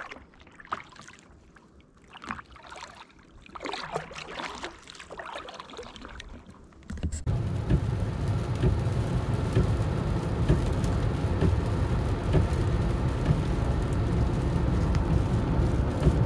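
Quiet splashes and drips of a double-bladed kayak paddle dipping into calm water. About seven seconds in it switches suddenly to the loud, steady road rumble and spray hiss of a car driving a rain-soaked highway, heard from inside the cabin.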